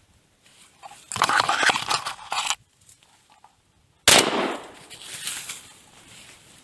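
A single shotgun shot about four seconds in, with a sharp report that rings out over a second or more. Before it comes a loud stretch of rustling and handling noise lasting about a second and a half.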